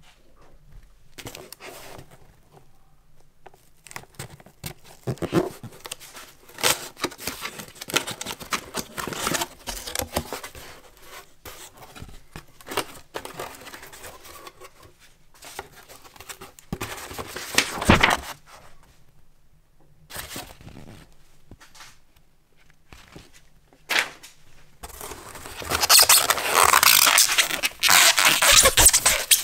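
Cardboard box being opened by hand: flaps scraping and tearing and paper rustling in irregular bursts. Near the end comes a loud stretch of rustling as a sheet of packing foam is pulled out against the cardboard.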